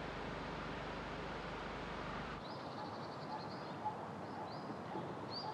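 Outdoor ambience: a steady noisy hum with a low drone that cuts off abruptly about two and a half seconds in, leaving quieter open air with small birds chirping in short high calls.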